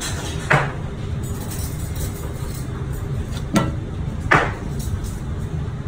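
Steady low rumble of kitchen ventilation, with three short knocks as a bone-in tomahawk steak is handled on a plastic cutting board.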